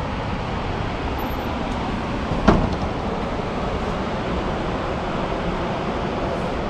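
Steady rushing of a rocky mountain river's white water, with one brief sharp sound about two and a half seconds in.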